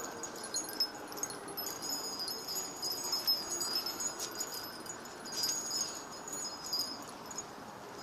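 Wind chimes tinkling: high ringing tones come and go over a steady background hiss.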